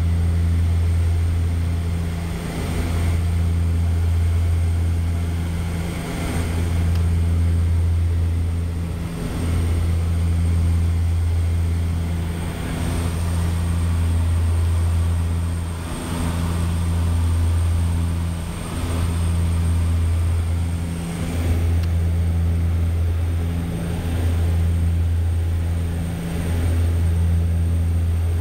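Floatplane's twin propeller engines droning steadily, heard from inside the cockpit in cruise. The low drone swells and fades about every three seconds.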